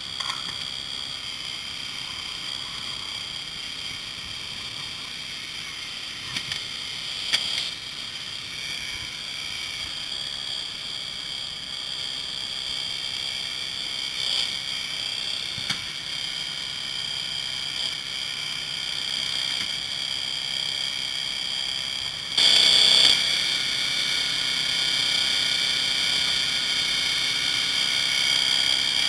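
Hydraulic rescue equipment running with a steady high-pitched whine while firefighters cut and spread a vehicle door. It gets louder for about a second near the end, and a few short knocks of metal come through.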